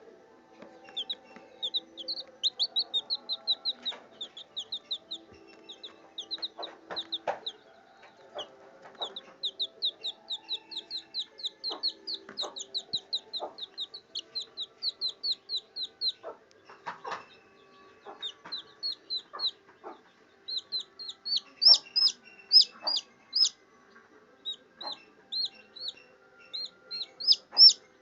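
Domestic chicks peeping: long runs of short, high-pitched peeps, several a second, with brief pauses and louder peeps in the later part. Faint scattered taps sound underneath.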